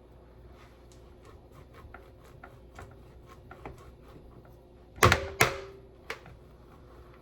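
Cheese being grated by hand on a metal grater: a quick run of short rasping strokes, about three a second, then two loud knocks close together about five seconds in, as of the grater knocked against a hard surface.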